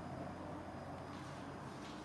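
Quiet indoor room tone: a steady low hum with two faint ticks in the second half.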